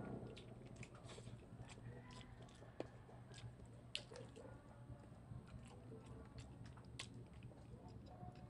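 Faint wet chewing and mouth smacking from someone eating adobo chicken feet and rice by hand, with many small scattered clicks and a couple of sharper snaps, about four and seven seconds in. A low steady hum runs underneath.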